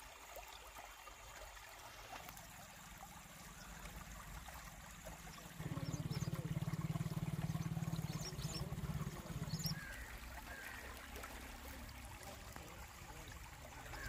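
River water trickling and lapping at the sandy bank. A low steady hum comes in for about four seconds in the middle and is the loudest sound.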